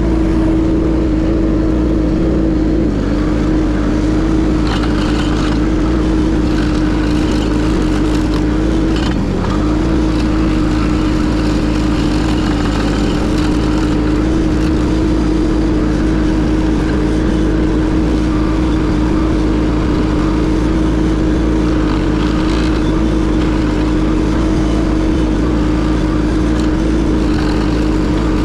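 Case TL100 mini skid steer's engine running steadily under power, a constant loud hum with a brief dip about nine seconds in.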